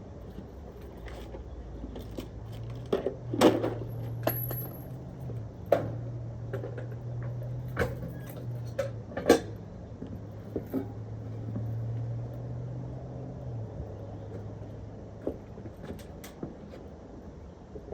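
Hands-on handling noise while working on an air conditioner: a string of sharp clicks, knocks and light metallic clinks of tools and parts, irregularly spaced. A low steady hum joins about two seconds in and drops away a little after the middle.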